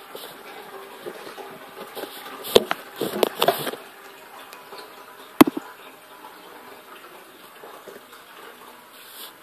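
Handling noise of a camera being moved low over a tiled floor: a cluster of sharp knocks and rustles about two and a half seconds in, then one sharp click a couple of seconds later.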